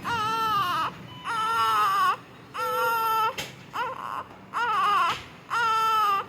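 Newborn baby crying in six short, high-pitched cries, each under a second, coming in a regular rhythm of about one a second.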